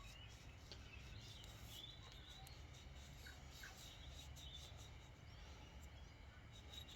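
Near silence: a faint steady low hum of room tone, with a few faint short high chirps and light ticks.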